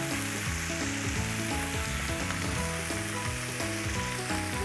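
Chicken leg quarters frying in hot fat in a ridged grill pan, a steady sizzle as garlic-butter marinade is spooned over them. Background music of low notes that shift in steps plays underneath.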